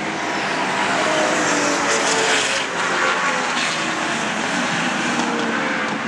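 Car passing at speed on a race track's front straight, engine loudest about two to three seconds in and its note falling in pitch as it goes by.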